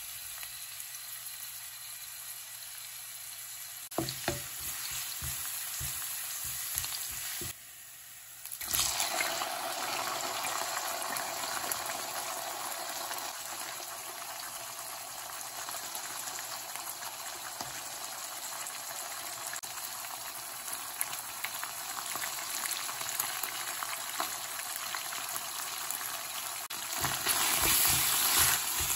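Crushed ginger and garlic sizzling in hot oil in a non-stick wok. About nine seconds in, the sizzle grows louder as sliced liver goes into the pan. Near the end a wooden spoon knocks and scrapes against the wok as it stirs.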